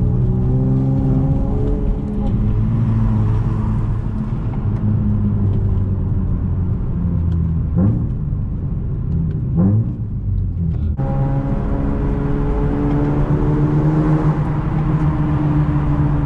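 Honda J35 V6 engine running while the car is driven, a steady engine note with two quick rises and drops in revs about halfway through. About two-thirds of the way in the sound turns louder and fuller as the engine pulls harder.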